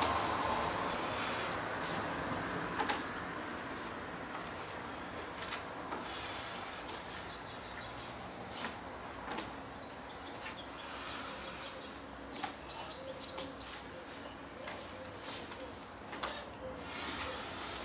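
Outdoor ambience: a steady background noise, loudest at the start and easing off, with birds chirping in short rapid trills several times from about six seconds in. Scattered soft knocks and rustles come from a martial artist stepping and moving on a wooden balcony deck.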